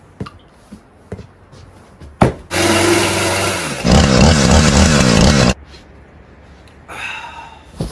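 Husqvarna 445 two-stroke chainsaw running at high revs, then cutting through a cardboard box with a louder, wavering engine note before cutting off suddenly. A sharp knock comes just before the saw starts, and small knocks and rustles come before that.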